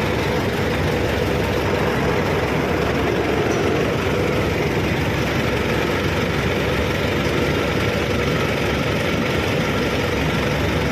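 A machine running steadily, an engine-like drone that holds an even level throughout.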